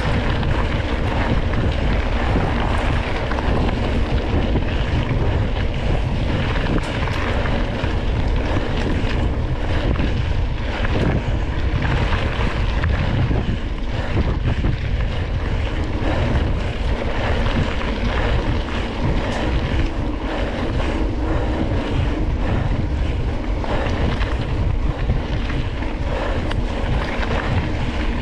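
Wind buffeting the microphone over the rumble and rattle of a single-speed Surly Krampus mountain bike riding fast over a dirt trail, with frequent small knocks from bumps.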